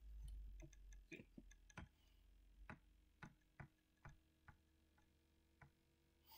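Faint computer mouse clicks, about a dozen at uneven intervals. There is a low rumble in the first second.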